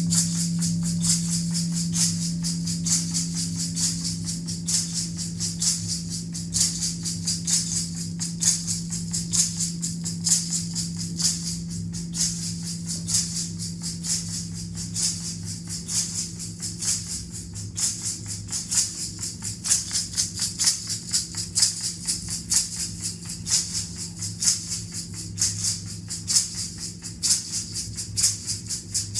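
Dense, irregular rattling like a shaken rattle or maraca, many small clicks a second, over a steady low hum that fades away over the first half.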